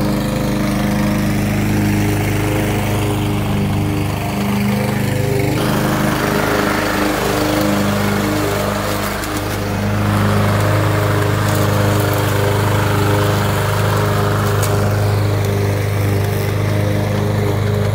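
Craftsman push mower's engine running steadily close by, with slight changes in its note as it is pushed around the yard.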